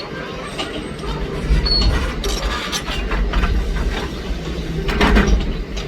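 Komatsu PC200 hydraulic excavator working: a low diesel rumble that builds about a second in, under steady metallic clicking and clanking, with a louder burst of clatter about five seconds in.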